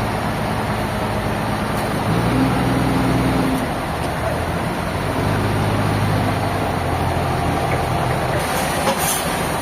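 Sawmill machinery running: a steady engine note over a constant noisy haze, its pitch shifting a few times as the load changes.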